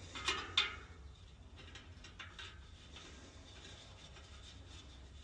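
Two brief scraping handling sounds from tools and the wheel being worked on in the truing stand, then faint light clicks over a low steady hum.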